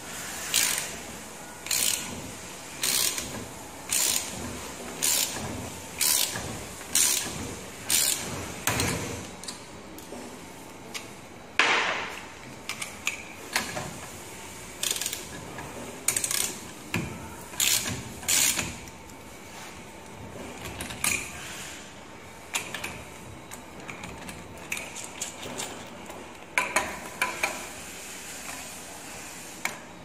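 Bolt of an insulation piercing connector being tightened with a wrench: repeated clicking strokes, evenly about once a second at first, then irregular, with one louder stroke about twelve seconds in.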